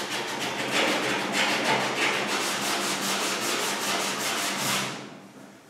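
Hand sanding body filler on a car's steel quarter panel with a sanding sponge: quick back-and-forth rubbing strokes that stop about five seconds in.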